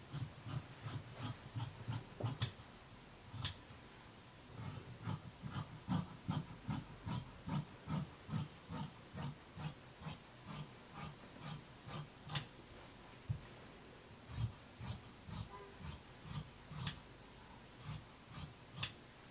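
Fabric shears cutting through knit fabric on a table, a steady run of snips at about two a second, each a short click with a low thud, with a brief pause about four seconds in.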